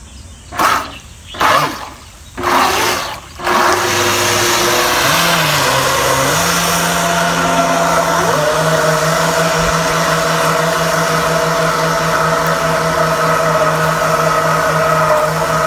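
Three short rushing bursts, then a small electric motor running steadily at speed with a whine and water churning; its pitch climbs and settles higher about eight seconds in.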